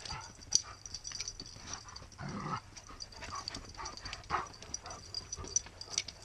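Dogs playing: short vocal sounds, the loudest a little over two seconds in, among quick scuffs and patters of paws in loose dirt.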